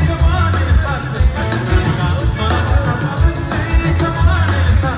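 Live band playing an Ethiopian pop song, with a man singing lead into a microphone over drum kit and electric guitar.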